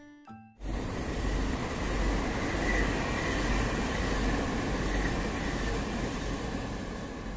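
A passenger train running past on the track: a steady rumble and rail noise that sets in suddenly about half a second in and eases slightly near the end.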